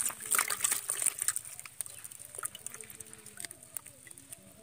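A caught fish dropped into a small plastic bucket of water, with splashing and the plastic lid and bucket knocking and rustling in a quick flurry during the first second or so. Later a faint wavering call sounds in the background.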